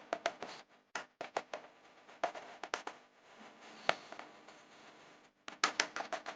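Light taps and clicks of kitchen items being handled, irregular, with a quick cluster near the end.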